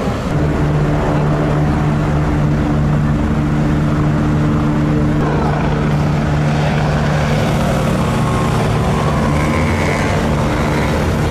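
Helicopter flying low overhead, its rotor and engines giving a steady hum.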